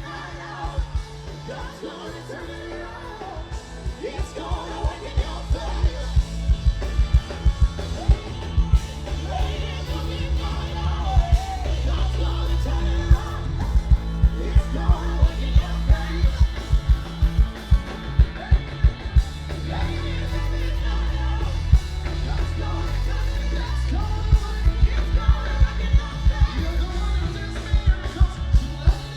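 Live gospel band music with singing, heavy bass and a steady drum beat of about two hits a second that grows stronger from about four seconds in.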